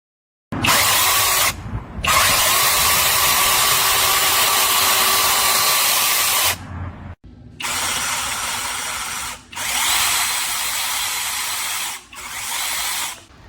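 Cordless brushless 6-inch mini chainsaw running with a steady whine, in several runs with short breaks between them. The longest run lasts about four and a half seconds.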